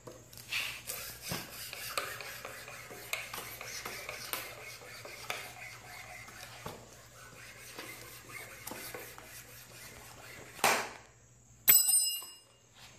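Kevlar friction-saw cord pulled rapidly back and forth through a wooden stick: a run of quick scraping strokes that ends in a louder burst as it cuts through. About a second later comes a sharp metallic clink with a short ring.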